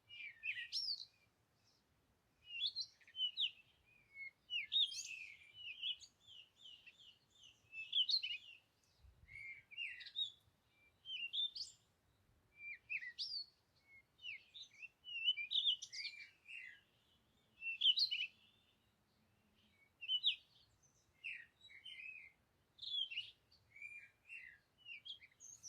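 A songbird chirping and singing in quick, varied phrases of high chirps and sweeping notes, with short pauses between phrases.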